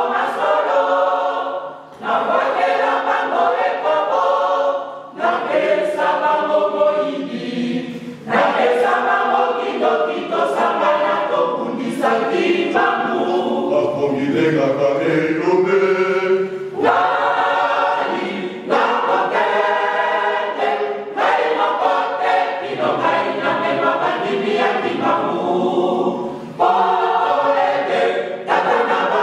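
Mixed choir of women's and men's voices singing a hymn in Lingala a cappella, with short breaks between phrases in the first few seconds.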